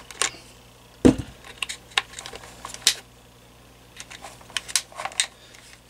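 Cutters snipping through an electrical power cord, with the cord and tools being handled: a string of short sharp clicks, the loudest a heavier knock about a second in.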